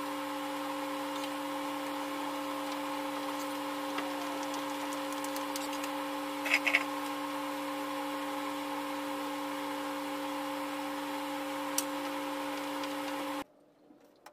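A steady electric hum holding a constant pitch, with a few sharp clicks and taps, the loudest pair a little past the middle; the hum cuts off suddenly near the end.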